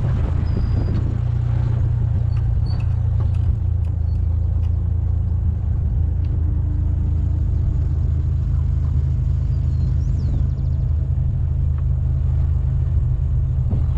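Motor vehicle driving along steadily: a constant low rumble of engine and running noise.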